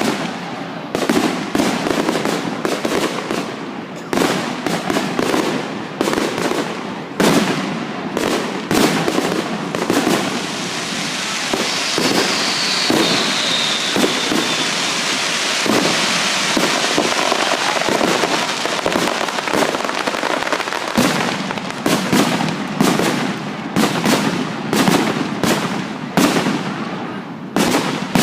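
Fireworks display: a rapid series of loud bangs and pops. In the middle there is a stretch of dense crackling, with a short whistle falling in pitch.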